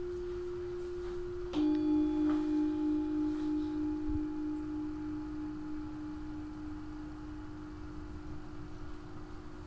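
Singing bowls ringing: one bowl holds a steady, pure tone, then about a second and a half in a second bowl is struck and rings a slightly lower note with faint higher overtones, its sound wavering as it slowly fades.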